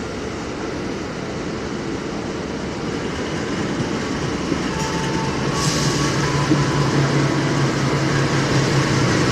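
Diesel locomotive of the Argo Bromo Anggrek express passing through the station without stopping. Its engine drone grows steadily louder as it draws near, with a brief hiss about halfway through.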